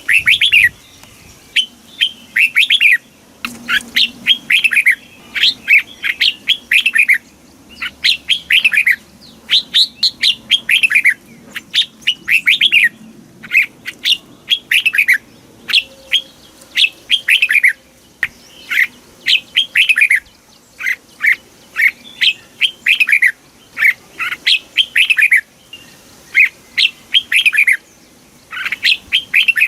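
Red-whiskered bulbul singing: short, bright phrases of quick falling whistled notes, repeated about every second with brief gaps between.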